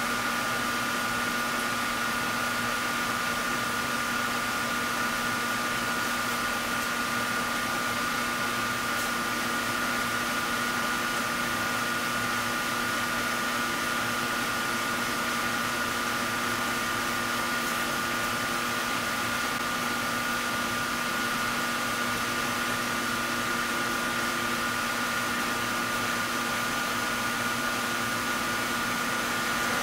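Steady mechanical whir, like a running fan, with a constant low hum and a constant higher tone over it, unchanging and without pauses.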